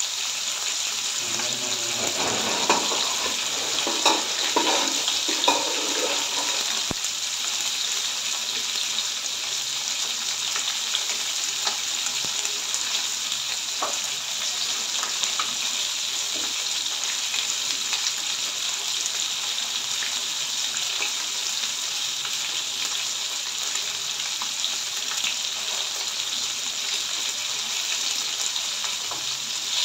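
Fish steaks shallow-frying in oil in a nonstick pan: a steady sizzle with scattered crackles, and a few louder pops in the first several seconds.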